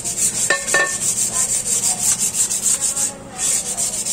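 Sandpaper (240 grit) rubbed by hand over a rusty motorcycle rim in quick, even back-and-forth strokes, stripping rust and old paint before primer. Two short ringing clicks come about half a second in.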